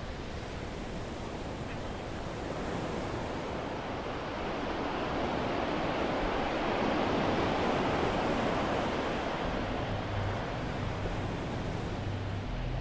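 A steady rushing noise that swells in the middle and eases off. A low, steady engine hum comes in near the end.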